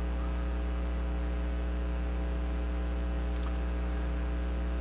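Steady low electrical hum with a ladder of evenly spaced higher overtones: mains hum on the recording.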